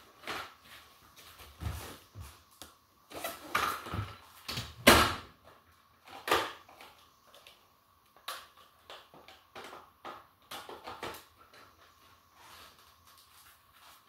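Handling of a switched-off Dyson DC25 upright vacuum: a series of plastic clicks, knocks and rattles as its wand and hose are moved and the machine is stood upright, the loudest knock about five seconds in.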